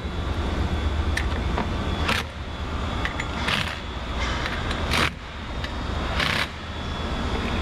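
Makita cordless impact driver running down the front-cover bolts of a bolt-together torque converter in four short bursts, over a steady low hum. The bolts are only being lightly seated, drawing the two halves evenly together before final torquing to spec.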